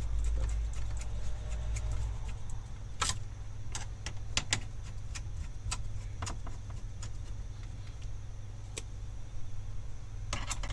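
Screwdriver tightening the CPU cooler's screws into a PC motherboard: scattered small metallic clicks and taps of the bit, screws and metal frame, a few sharper than the rest, over a steady low hum.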